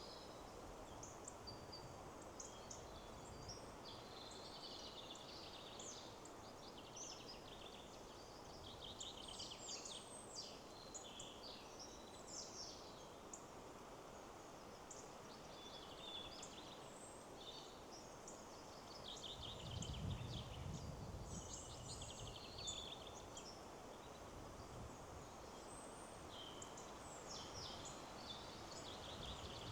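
Several small songbirds singing in quick, high, chirping phrases over a steady rush of wind through the trees. A low rumble swells briefly about two-thirds of the way through.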